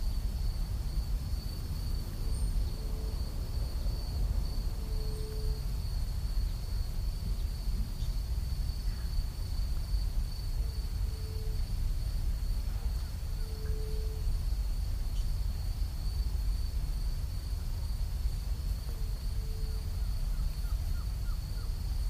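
Nature ambience: a steady high-pitched insect trill over a low wind-like rumble, with a low bird hoot in pairs of notes, a short one then a longer one, about every eight seconds.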